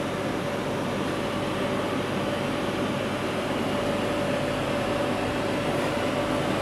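Steady mechanical hum of running machinery, with a constant mid-pitched tone over an even whirring noise.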